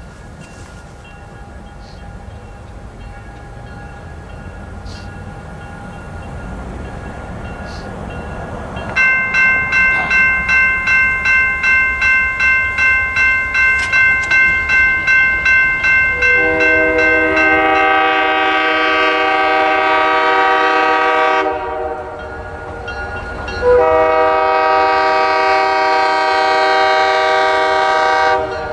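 Railroad crossing bell starts ringing about nine seconds in, at about two strokes a second, as the crossing activates for an approaching train. Over it the approaching locomotive sounds two long horn blasts for the crossing, the second ending near the end.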